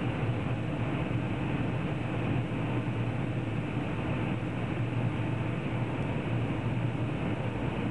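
Steady cabin noise inside an airliner descending to land: an even rush of engine and airflow noise with a low hum beneath it.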